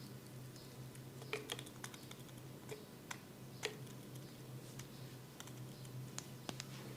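Hands massaging an oiled scalp and hair: irregular sharp little clicks and snaps of fingers working through the hair, over a low steady hum.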